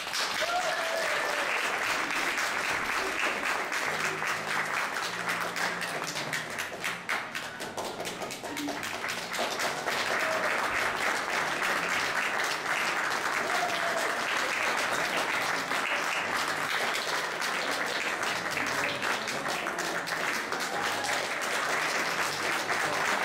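Audience applauding steadily, with a few short voices calling out over the clapping.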